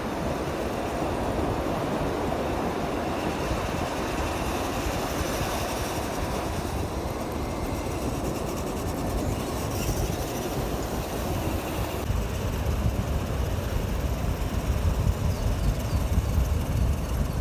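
Steady rumble of surf, with wind buffeting the microphone, gustier near the end.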